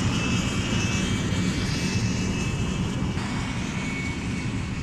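Jet aircraft engine running steadily: a high whine over a broad rumble.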